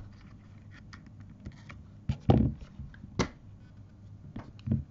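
Scattered sharp clicks and a few louder knocks from handling blue-handled wire cutters and a length of thin 24-gauge stainless steel wire on a work mat. The loudest knock comes a little over two seconds in.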